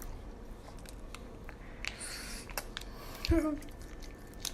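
Small clicks and rustles of someone eating, with a short hiss about two seconds in and a brief low vocal sound, like an "mm", a little after three seconds.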